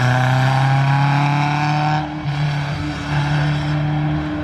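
Vintage Riley racing car's engine accelerating hard up the hill. The revs rise steadily, break off briefly about two seconds in, then pull on at a steadier pitch.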